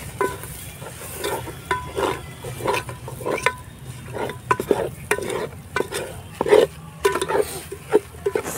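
Steel ladle stirring snails and egg in an aluminium cooking pot, scraping and knocking against the pot in repeated short ringing clinks, about one a second, over the sizzle of the frying mixture.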